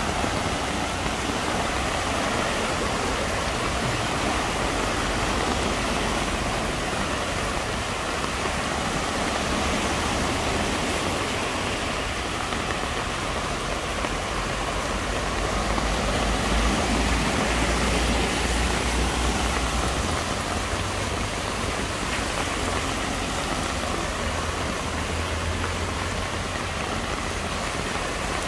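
Heavy rain falling and cars and vans driving slowly through deep floodwater, engines running low while their wheels churn through the water in a continuous rushing wash. It grows louder for a few seconds past the middle.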